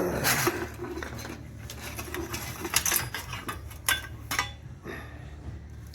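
Rummaging through loose items: irregular clicks, light rattles and rustling as things are moved about, over a steady low hum.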